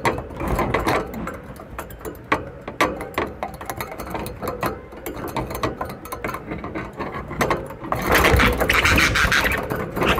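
Budgerigars in a wire cage: irregular clicks and scratches, then from about eight seconds in a louder stretch of busy chattering.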